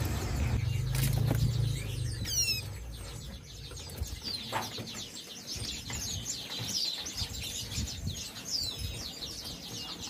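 A box of small caged songbirds flapping their wings in the first couple of seconds, with many short, high, falling chirps throughout.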